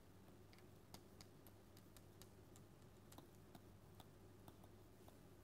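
Near silence with faint, irregular clicks of a stylus tapping on a tablet screen during handwriting, over a low steady hum.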